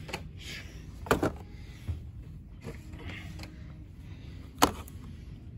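A few sharp clicks and knocks from handling, a pair about a second in and a louder single one near the end, over a steady low background hum.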